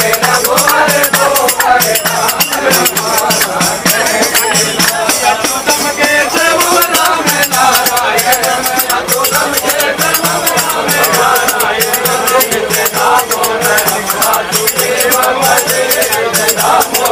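A group of men singing a bhajan together, with hand-claps and rattling percussion keeping a steady beat.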